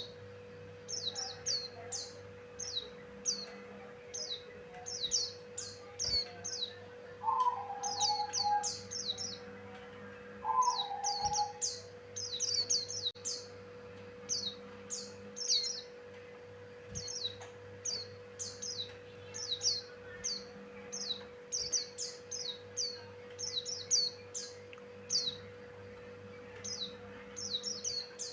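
A pleci buxtoni white-eye singing: quick bursts of short, high, downward-sliding chirps, repeated over and over with brief gaps. Twice, about a third of the way in, a lower short call sounds. A steady electrical hum runs underneath.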